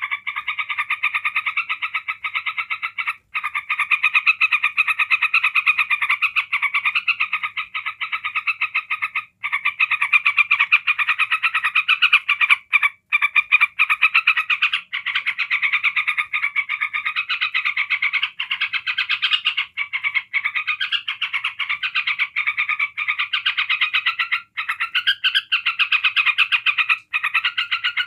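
Yellow-vented bulbul giving its 'ngebren' song: a fast, buzzy rattling chatter that goes on almost nonstop, broken only by a few very short pauses. It is the excited, unbroken call that bird-keepers prize in a bulbul in good form.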